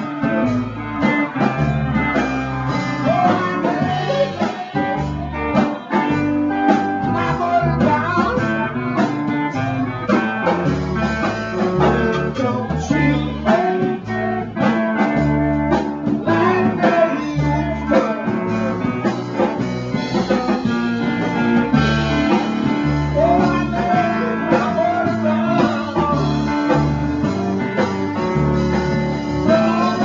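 Live blues music from a band, with guitar out in front over a steady bass line.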